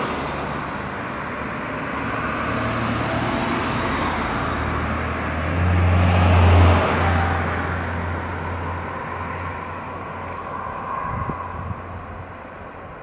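Road traffic on a multi-lane highway: car engines and tyre noise from passing cars. It is loudest about six seconds in, as a sedan passes close by, then fades to a quieter traffic hum toward the end.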